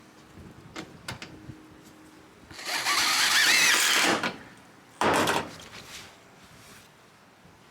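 A power drill driving roofing screws through metal roofing panels into the wooden strapping. It runs twice: a run of about a second and a half with a wavering whine, then a short burst about five seconds in.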